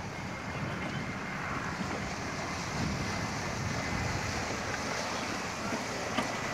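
Wind buffeting the microphone over a steady rush and splash of water from a boat under way.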